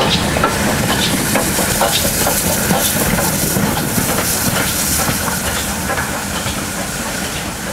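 Steam locomotive 62005, a Peppercorn K1 2-6-0, passing slowly with a hiss of escaping steam that is loudest in the middle. Wheels click over the rail joints throughout.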